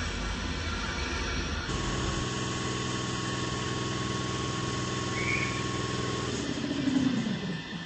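Compressor running. About two seconds in it settles into a steady pitched hum with a thin high tone. Just after six seconds it shuts off, and the motor winds down with a falling pitch.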